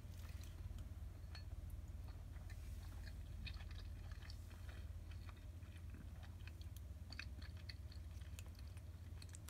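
A person chewing a mouthful of soy-simmered flounder close to the microphone: soft, irregular wet clicks over a steady low hum.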